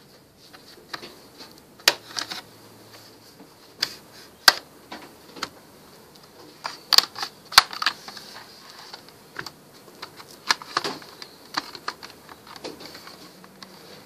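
Plastic case of a Toshiba P50 laptop being pried apart with a plastic pry tool and handled: an irregular scatter of sharp clicks, snaps and taps.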